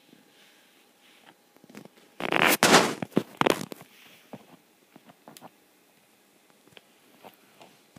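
A burst of rustling, rubbing noise lasting about a second and a half, a couple of seconds in, among scattered light clicks and taps, typical of a hand-held phone being handled while filming.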